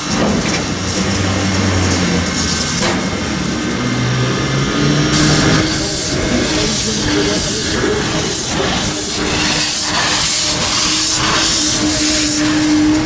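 Steam locomotives hissing, then from about five seconds in a small steam tank locomotive moving slowly, with a loud hiss of steam from its open cylinder drain cocks and regular exhaust chuffs about two a second.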